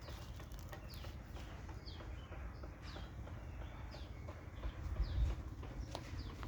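A bird calling over and over: short, high chirps that fall in pitch, about once a second, over a low rumble that swells briefly about five seconds in.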